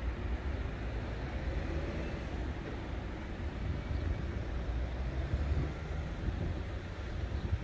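Steady low rumble of road traffic running nearby, with no warning alarm sounding.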